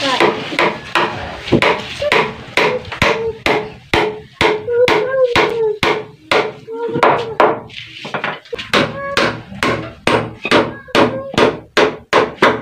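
Claw hammer striking a wooden frame in rapid repeated blows, about three a second, with a short break about eight seconds in.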